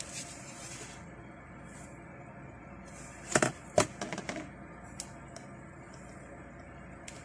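Hard plastic case of a handheld terminal knocking twice against a bench top about three and a half seconds in, followed by a few lighter clicks and taps as it is handled. A faint steady hiss runs underneath.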